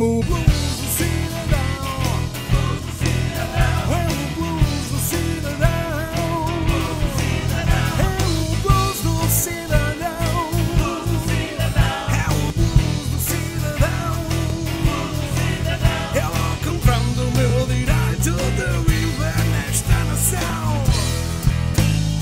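Blues-rock song playing as a soundtrack: an instrumental stretch with a wavering lead line over a steady bass and drum beat.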